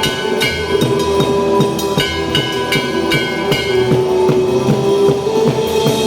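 Loud music with a steady drum beat, several hits a second, under a held melody line.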